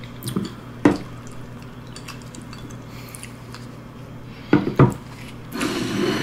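Cooked crab being handled and broken apart with gloved hands: a few sharp clicks and knocks, then a longer crackling crack of shell near the end.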